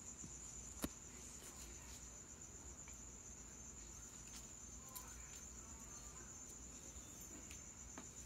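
Crickets trilling steadily at one high pitch, with a single sharp click about a second in.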